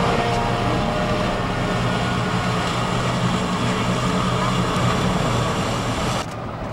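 Steady low engine drone under a wide rushing noise, cutting off about six seconds in.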